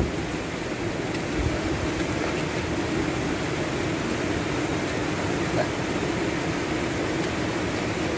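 A river rushing steadily, with a couple of faint knocks about one and a half and five and a half seconds in.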